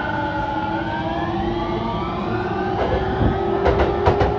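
Electric train's inverter and traction motors whining, several tones rising slowly in pitch as it pulls away, with a few sharp clacks about three to four seconds in.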